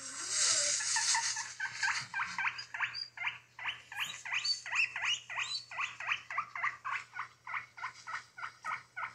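Guinea pigs wheeking, played through a phone's speaker: a longer, hissy squeal in the first second, then a rapid run of short, repeated squeaks, about four a second.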